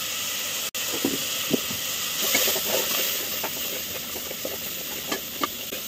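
Chopped onions, tomatoes and spices sizzling in oil in an aluminium pressure cooker, with a wooden spatula stirring and scraping the pan in short clicks.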